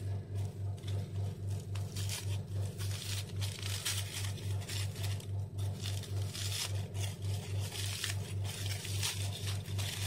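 Aluminium foil crinkling and rustling in short scratchy bursts as baked potatoes are unwrapped from it and worked with a knife. Under it runs a loud low hum that throbs evenly about four times a second.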